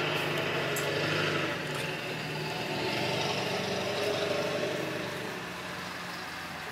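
A steady mechanical hum from a running motor, easing a little near the end.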